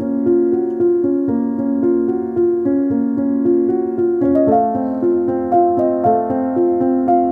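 Background piano music with a steady run of repeating notes. The harmony shifts about four seconds in, moving to higher, brighter notes.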